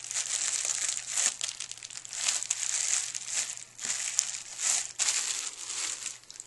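Plastic bubble wrap crinkling as hands press and smooth it down onto a canvas, in irregular crackly bursts.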